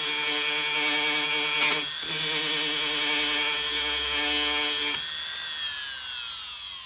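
Foredom flex-shaft rotary tool with a grinding wheel running as a high steady whine while it grinds the grit off the back of cloth-backed sandpaper. About five seconds in the grinding stops and the whine falls steadily in pitch as the tool spins down.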